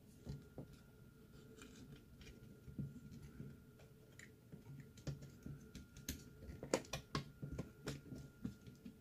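Light plastic clicks and taps of fingers working inside an opened digital converter box, unplugging a small wire-harness connector from the circuit board, with a quick run of sharper clicks about six to eight seconds in.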